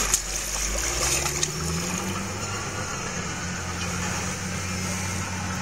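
An engine running steadily with a low hum, its pitch rising a little over the first two seconds and then holding.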